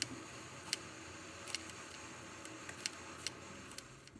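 Pressurised Instant Pot Duo Plus at the end of its cook cycle: a faint steady hiss of steam seeping at the lid's steam release valve, with irregular sharp ticks roughly every half second to second.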